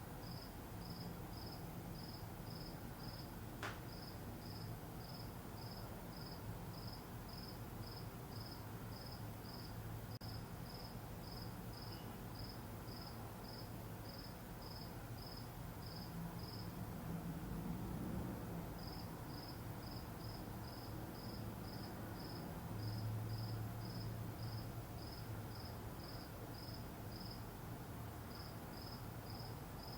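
A cricket chirping steadily at about two chirps a second, pausing for a couple of seconds past the middle and briefly near the end, over a low hum.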